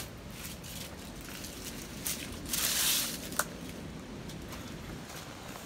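Footsteps and phone-handling noise of someone walking down concrete steps onto grass, with a brief hiss about two and a half seconds in and a sharp click just after.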